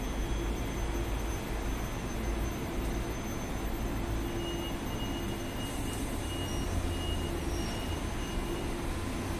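Electric commuter train at a station platform, its low rumble and steady hum running without a break, with a faint high tone coming and going in the middle.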